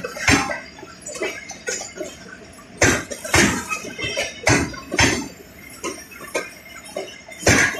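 Passenger train coaches rolling past on the near track, their steel wheels clacking over rail joints in sharp, irregular knocks about once a second over a low rumble.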